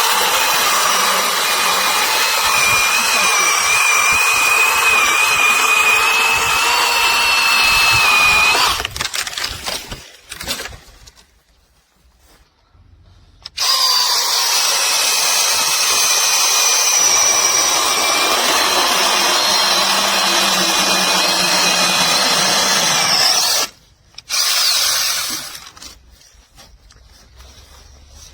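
Battery-powered brushless 6-inch mini chainsaw running with a steady high whine while cutting wood, in three runs: two long ones and a short one near the end. The pitch rises just before each long run stops.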